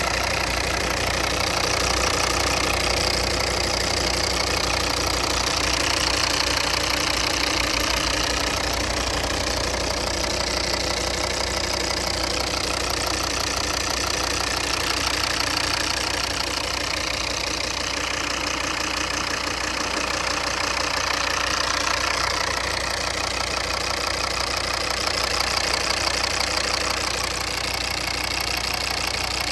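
Diesel engine of a 2014 Volvo V40 Cross Country D3 running steadily with a knocking noise, which the owner links to a vibration.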